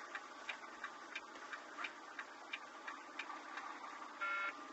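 Steady ticking of a truck cab's indicator flasher, about three clicks a second. A short electronic beep sounds about four seconds in.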